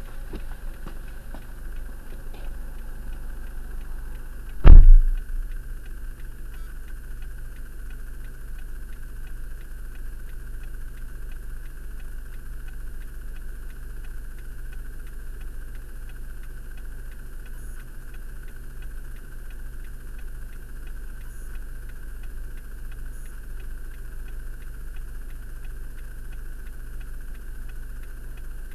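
Car engine idling steadily, heard from inside the stopped car's cabin, with one heavy thump about five seconds in.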